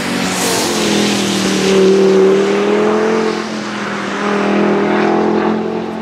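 Audi RS 3's turbocharged five-cylinder engine accelerating hard, its note rising, dropping at a gear change about three seconds in, then rising again.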